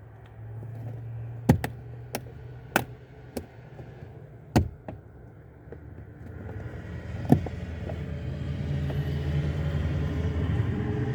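A handful of sharp clicks and knocks, then a low rumble that builds steadily in the second half, like a vehicle.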